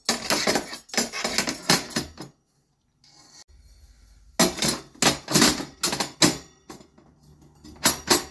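Metal slat grates of a laser engraver's bed clinking and clattering as they are slid and settled into the bed tray. The clatter comes in two bouts with a short, near-silent pause about two seconds in, and a couple more knocks near the end.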